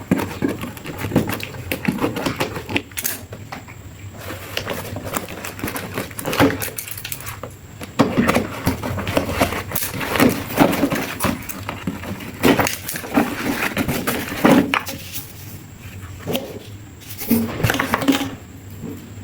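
Irregular knocks, clicks and clatter of hard objects being handled, with no motor running.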